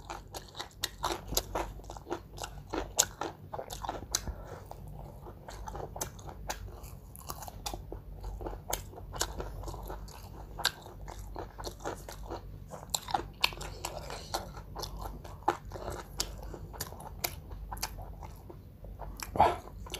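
Close-up eating of an ayam penyet meal with raw vegetables: irregular crunching and chewing, full of sharp crisp clicks, going on throughout.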